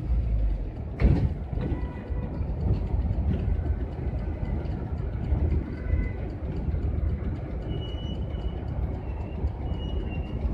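Steady low engine and road rumble heard inside the cab of a moving GAZelle van, with the cab rattling. There is one sharp knock about a second in.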